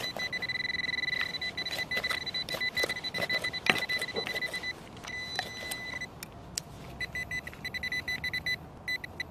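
Metal detector giving a steady high-pitched tone over a buried metal target, which breaks into quick repeated beeps about two-thirds of the way through, with short clicks and scrapes of digging in soil.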